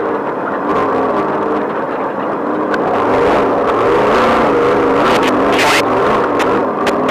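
Off-road race vehicle's engine running hard over rough terrain, its revs rising and falling with the throttle. Several sharp knocks and clatters from the vehicle bouncing over rocks come in the second half.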